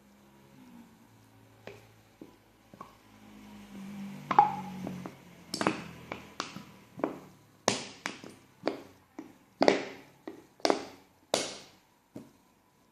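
A run of sharp taps and knocks, about one a second, as a plastic bottle of borax water is handled and emptied into the slime mixture.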